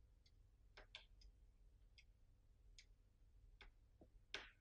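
Near silence with faint, irregular light clicks and taps as small circuit boards and flex-cable adapters are handled and set down on a tabletop, the loudest near the end.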